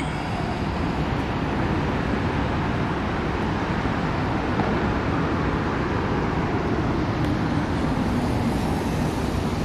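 Steady city traffic din: a continuous low rumble of road vehicles with no distinct events.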